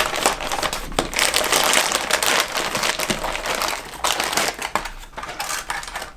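Plastic parts bags crinkling and rustling as model-kit parts are unbagged, with small sharp crackles and clicks; the handling is busiest in the first four seconds and thins out toward the end.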